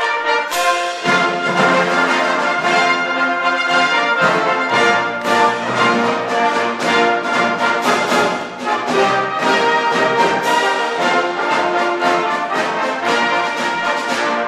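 Brass band playing together in full: cornets, horns, euphoniums, trombones and tubas sounding a continuous piece.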